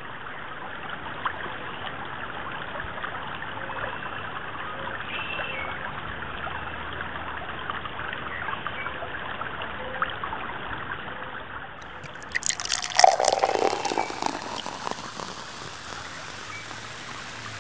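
Creek water flowing steadily in a constant rushing noise. About twelve seconds in, a louder clattering sound with a falling sweep cuts in for two or three seconds.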